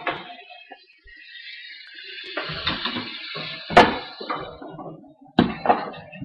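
Water running and draining in a stainless-steel kitchen sink as a steady hiss, broken by several sharp knocks, the loudest about four seconds in.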